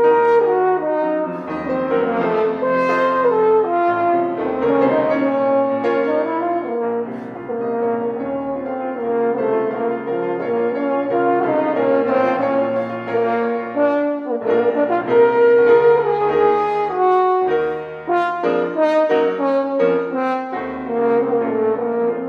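French horn playing a melody over a grand piano accompaniment; the piano is a Steinway Spirio player grand playing back on its own, with nobody at the keys. The horn breaks off briefly about two thirds of the way through.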